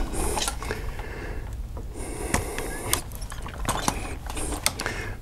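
Scattered small clicks and rustles of copper wires being bent and a three-way light switch, with its metal mounting strap, being handled at a plastic electrical box.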